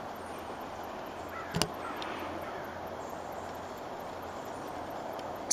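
Steady outdoor background noise with two sharp clicks: one about a second and a half in, and a louder one at the very end.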